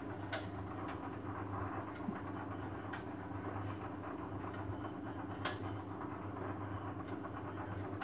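Beko WMA 1510 front-loading washing machine turning its drum during a wash: a steady low motor hum with a wash of water and laundry noise. A few sharp clicks come through, about a third of a second in, again about two seconds in and loudest about five and a half seconds in.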